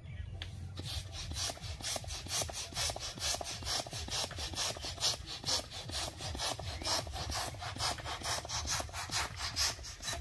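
Hand balloon pump pushing air into a long spiral balloon: quick, even hissing pump strokes, about three a second, as the balloon fills.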